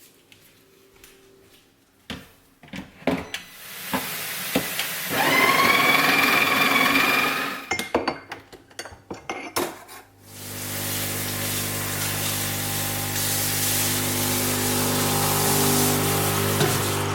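Kitchen appliances at work: a few knocks and clicks, a motor whirring for about three seconds, then from about ten seconds in a steady humming buzz with a rushing noise.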